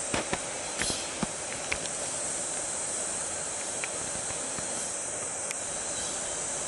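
Steady outdoor background hiss, with several short sharp clicks in the first two seconds and a couple of faint ticks later.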